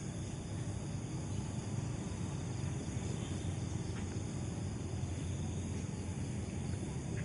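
Steady outdoor background noise: a low rumble under a constant high-pitched drone.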